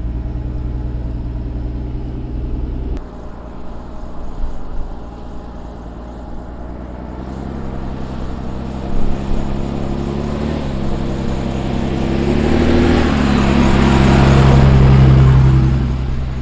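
Ram 5500 tow truck's Cummins diesel engine pulling at low speed on a muddy track, a steady drone. It drops off about three seconds in, then builds again with two shifts in pitch. It grows loudest near the end, with a rushing noise rising under it.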